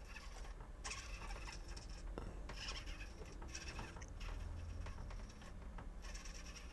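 Hobby servos driving the droid's head turn and tilt, whirring in several short bursts a second or less long, with pauses between them.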